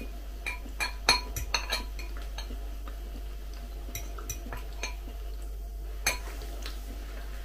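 Knife and fork clinking and scraping against a glass baking dish while baked beef is cut, in scattered sharp clicks, the loudest about a second in and again about six seconds in.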